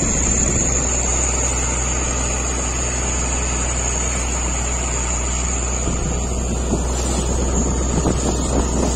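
Fishing boat's engine running steadily while under way, a constant low drone with a thin steady high whine over it and the rush of water and wind.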